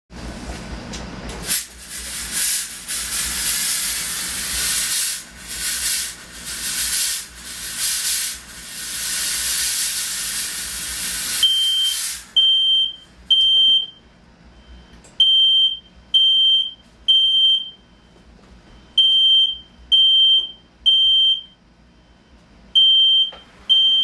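Fog machine hissing as it blows water-based fog for about the first twelve seconds. Then the smoke alarm, set off by the fog, sounds: a high beep in groups of three, about one beep a second, with a pause between each group.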